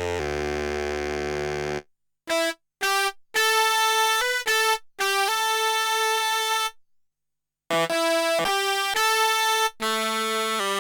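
Kurzweil K2000 synthesizer playing a factory preset dry, without effects: a held chord that stops just under two seconds in, two short notes, then a phrase of bright chords with a pause of about a second in the middle. The notes cut off abruptly when released.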